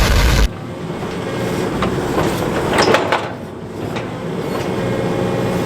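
John Deere excavator's diesel engine running under hydraulic load, with intermittent clanks and knocks as the bucket is worked to shake loose a stuck chunk of frozen dirt. A loud rushing noise cuts off abruptly about half a second in.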